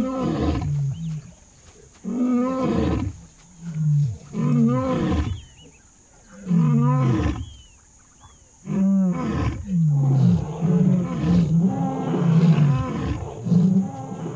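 Male African lion roaring: a bout of long, deep moaning roars, then from about nine seconds in a quicker run of short grunting roars.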